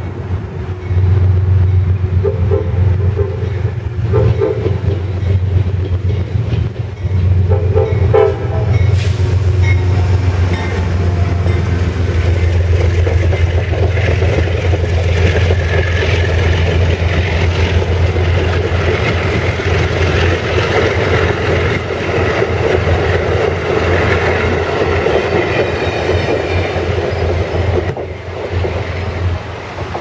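Amtrak diesel locomotive giving a horn salute: a few short horn blasts in the first nine seconds over the steady drone of its engine. Then the locomotive and its passenger cars pass close by, wheels clattering over the rail joints, until the noise drops away near the end.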